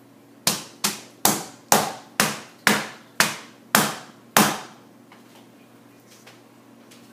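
Loaf soap mold rapped down on the tabletop nine times, about two knocks a second, each a sharp knock with a short ringing tail, settling the freshly poured layer of soap batter in the mold.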